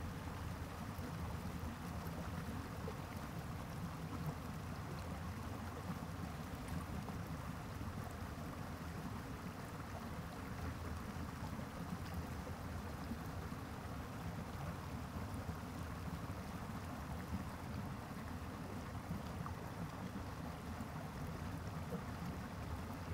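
A small stream running over rocks: a steady, even rush of water.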